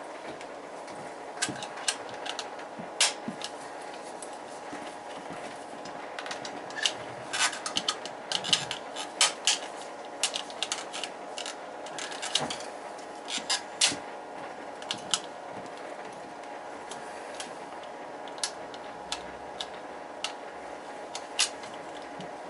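Irregular small clicks and taps of tools and parts being handled while a boiler control is rewired, thickest in the middle, over a steady hum.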